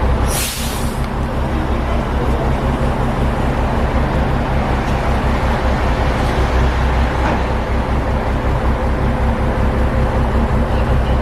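A large engine running steadily with a constant low hum, and a short hiss about half a second in.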